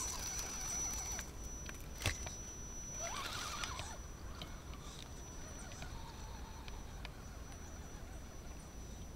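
Electric motor and drivetrain of an Axial Dingo radio-controlled scale crawler whining, rising and falling in pitch once as it speeds up and slows about three seconds in. A sharp click comes about two seconds in, over a steady high-pitched whine.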